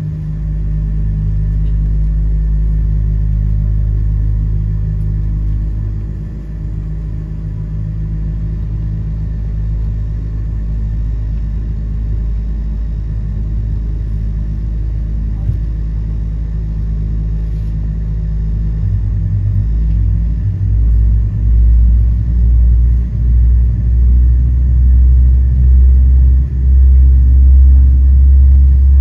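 Cabin noise of a Boeing 787-10 rolling slowly on the ground, heard at a window seat over the wing: a steady low rumble with a faint steady hum. About two-thirds of the way in the rumble grows louder and starts to surge unevenly.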